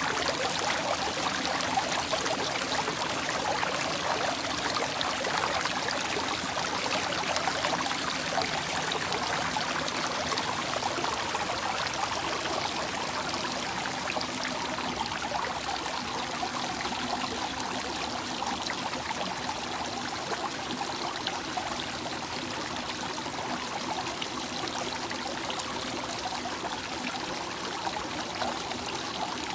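Flowing water running steadily, a continuous stream-like rush and trickle with no breaks.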